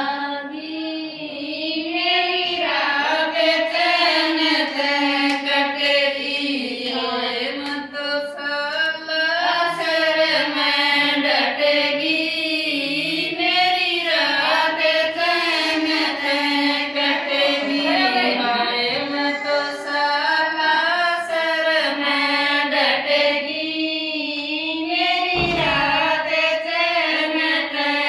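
Women singing a Rajasthani devotional bhajan to Balaji (Hanuman), a ratijaga song, their voices carrying one continuous melody.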